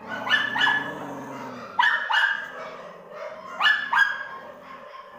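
Kintamani puppies yapping in a wire crate while scuffling with each other: short, high-pitched yaps in three quick pairs, about a second and a half apart.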